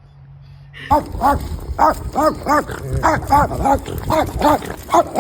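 Dog barking in a rapid, steady run of short barks, about three a second, starting about a second in.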